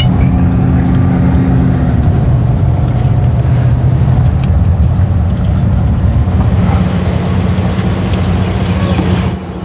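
Steady low drone of a car's engine and tyres on the road, heard from inside the cabin of the moving car.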